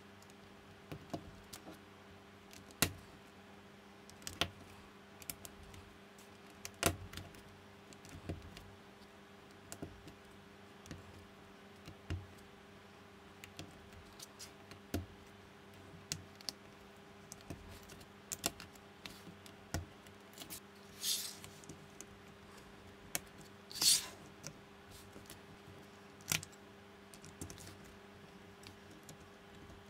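Plastic building bricks clicking and snapping as they are pressed onto baseplates, in scattered irregular clicks, with two longer rustling scrapes past the middle. A faint steady hum runs underneath.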